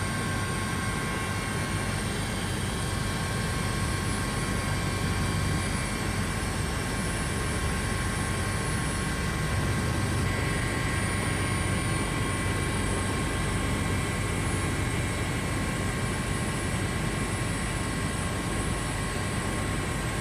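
Steady cabin drone of a Coast Guard turbine aircraft heard from inside, a loud even rumble with several constant high-pitched whines on top.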